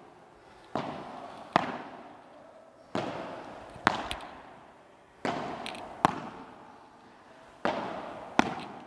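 Padel rackets striking the ball in a back-and-forth rally, eight sharp hits in pairs about a second apart. Each hit rings out in the large hall.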